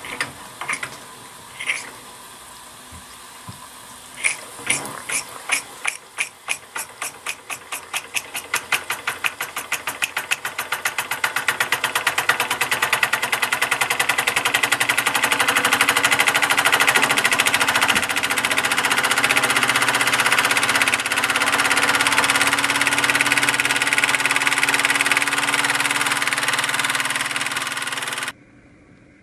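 Little Bing toy steam engine running on live steam. It gives a few separate puffs, then exhaust chuffs that speed up from about two a second until they blur into a fast, steady run. It runs steadily until it cuts off suddenly near the end.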